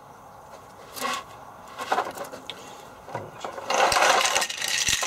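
Rustling and rubbing of a wiring loom being handled, with a few light knocks from its plastic connectors. The handling is brief and patchy at first, with the longest, loudest rustling a little under four seconds in.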